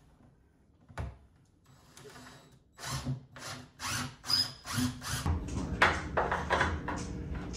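Cordless drill driving screws into a wooden wall cabinet, run in a string of short trigger bursts starting about three seconds in. Near the end a steady low hum joins in.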